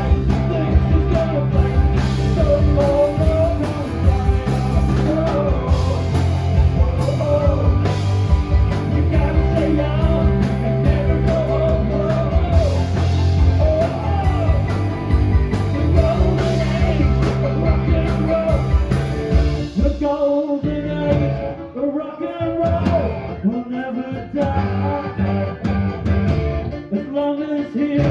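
Live rock band playing a song with sung lead vocal, electric guitars, bass and drums. About twenty seconds in, the cymbals and heavy low end drop away, leaving mostly guitar and voice.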